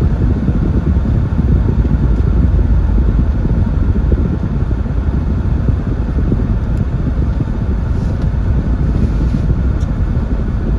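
Steady low rumble of a car on the move, heard from inside the cabin: engine and road noise with no clear events.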